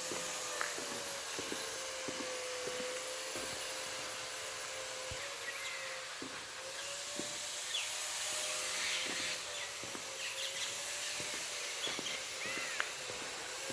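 A steady hiss with a faint wavering hum underneath, scattered short clicks, and a few short chirps in the second half.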